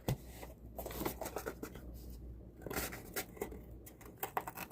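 Faint scratching and light irregular clicks from a small fixed-blade knife being handled and its edge tried against something.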